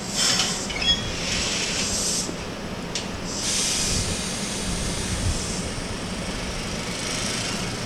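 Keihan Ishiyama-Sakamoto Line electric train at the platform: repeated hisses of air from its pneumatic brakes, coming and going in spells over a steady low electrical hum.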